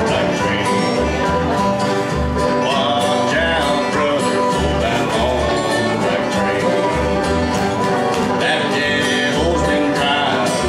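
Bluegrass band playing live: acoustic guitar strumming and upright bass notes keeping a steady beat, with mandolin and dobro lines over the top.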